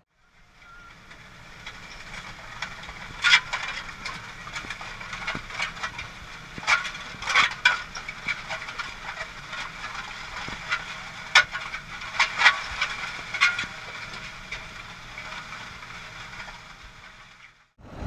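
Rattling and clicking inside the cab of a John Deere 6170R tractor pulling a disc harrow across a field, over a steady hiss, with a few sharper cracks standing out. It fades in at the start and fades out near the end.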